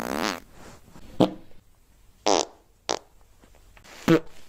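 A string of farts: a long one trailing off just after the start, then four short ones spaced about a second apart.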